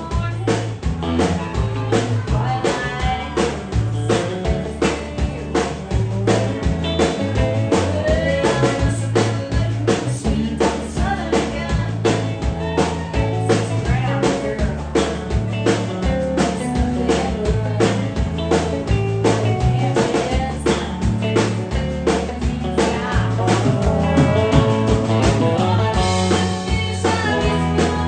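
Live country band playing, with a woman singing lead over acoustic and electric guitars, a moving low bass line and a steady drum beat.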